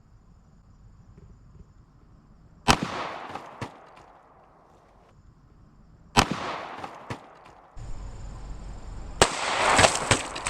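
Three loud 9mm pistol shots from a Glock 17 Gen 4 firing 124-grain +P hollow points, about three seconds apart. Each shot is followed within about a second by a fainter sharp crack, and a quick cluster of cracks comes near the end.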